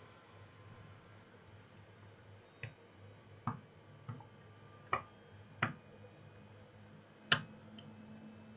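About six small sharp clicks at uneven intervals as a flat metal blade picks and pries plastic and glue off a laptop charger's USB-C plug, the loudest near the end.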